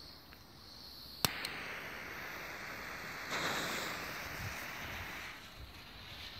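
A single sharp click about a second in, then the fizzing hiss of a lit consumer firework rocket, swelling to a louder hiss about three seconds in for two seconds before fading.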